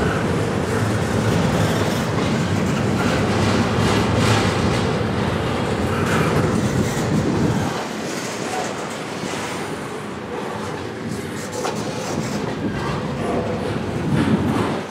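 Double-stack container well cars of a freight train rolling past, steel wheels rumbling and clicking on the rails. The deep low rumble thins out about halfway through.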